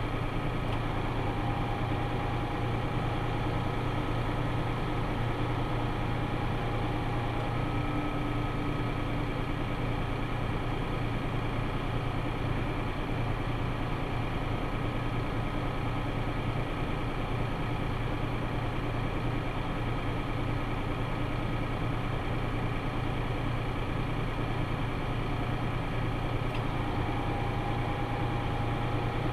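Tractor engine running steadily with a constant low hum and faint steady whines above it.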